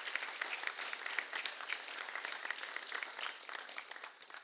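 Audience applauding: many hands clapping in a steady patter that begins to die away near the end.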